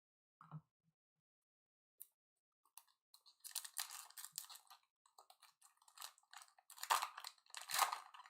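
Foil trading-card pack wrapper crinkling as it is torn open and handled, starting about three and a half seconds in, with the loudest crackles near the end.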